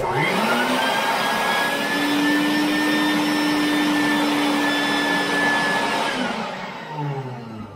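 Bucket-top shop vac switched on, its motor whining up to speed, then running steadily while its hose sucks the leftover water out of the bottom of a toilet tank. About six seconds in it is switched off and the whine falls away as the motor winds down.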